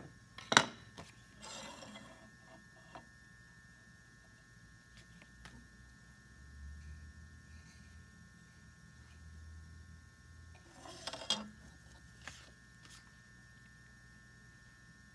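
Handling sounds of small tools and wood on a wooden workbench: a sharp knock about half a second in, a short scraping rustle, then a cluster of knocks and taps about eleven seconds in. A faint steady hum lies underneath.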